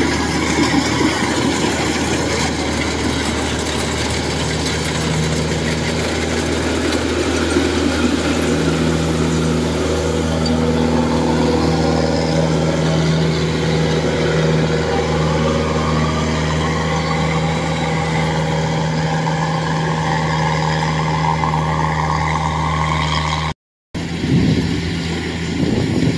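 Diesel engine of a Kubota DC-105X rice combine harvester running steadily under load as it cuts and threshes, fitted with a modified aftermarket exhaust. There is a short gap of silence near the end.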